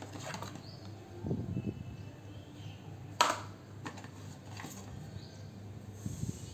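A cardboard box and plastic tubes being handled, with rustling and several small knocks and taps. The sharpest and loudest is a single knock about three seconds in.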